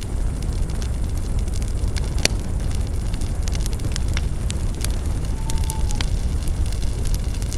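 Spruce branches burning in an open campfire, crackling with many sharp pops over a steady low rumble, one pop a little over two seconds in louder than the rest.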